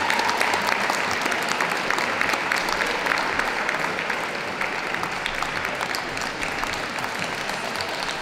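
Audience applauding steadily, a dense patter of many hands clapping that eases off slightly about halfway through.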